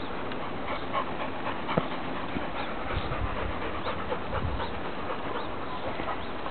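Two Labrador retrievers panting, with small ticks and rustles from their paws on a dirt path. There are a few low bumps around the middle.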